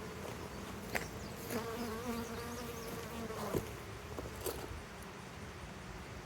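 Honey bees buzzing around an open hive, one bee's buzz coming close and loud for a second or two about a second and a half in. A few short sharp clicks sound over the buzzing.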